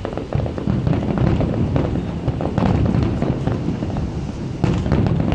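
Fireworks going off in quick succession: a dense, continuous run of booms and crackles that grows louder just after the start, with one sharper bang near the end.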